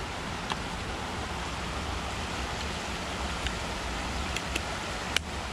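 Steady rush of river water pouring over a weir, with a few light clicks from the plastic camera housing being handled; the sharpest click comes just before the end.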